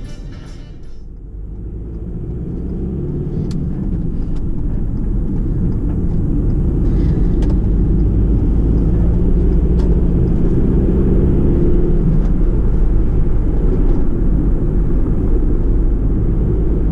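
Engine and road noise heard inside a van's cab while it drives. The noise grows louder over the first few seconds as the van picks up speed, then runs steadily.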